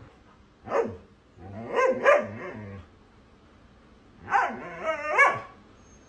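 A dog barking and yowling in three short bouts, the pitch of each call bending up and down.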